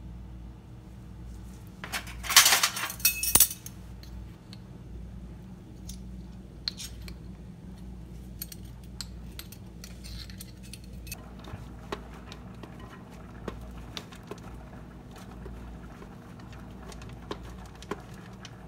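Granulated chicken bouillon rattling in its glass jar as it is shaken out into a pan: two quick loud shakes about two seconds in, followed by scattered small clicks and clinks of kitchen work.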